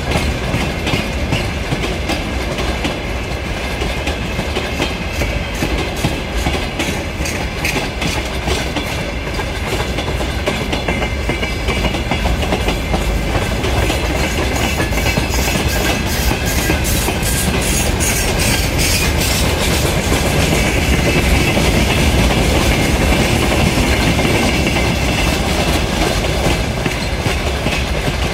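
Freight train of open gondola wagons rolling past at speed. The wheels clatter rapidly and without a break over the rail joints.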